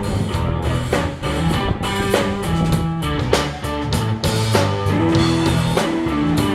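Rock band playing live, with a steady drum-kit beat under bass and electric guitar.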